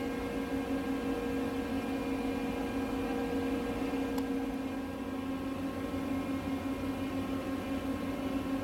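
Steady mechanical hum with a strong low tone and several fainter steady higher tones, unchanging throughout, with one faint click about four seconds in.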